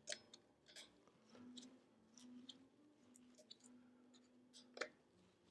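Near silence with a few faint, sharp clicks of small parts and tools being handled during computer reassembly.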